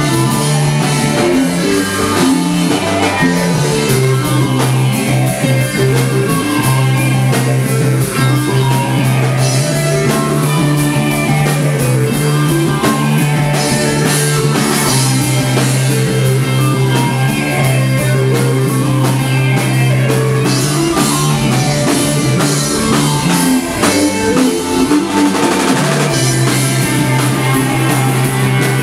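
A stoner rock band playing live at high volume: distorted electric guitars over bass guitar and a drum kit with cymbals, with a sustained low note that keeps going under the riff.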